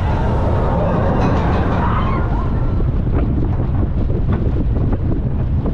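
Roller coaster train running on its track, with a steady low rumble and heavy wind buffeting the microphone. Scattered clacks start about three seconds in.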